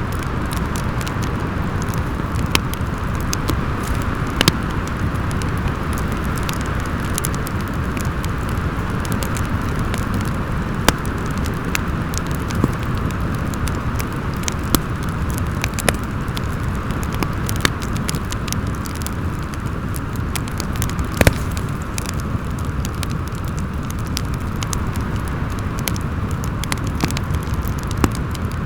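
Wind howling steadily over a crackling wood fire, with irregular sharp pops; the loudest pop comes about 21 seconds in.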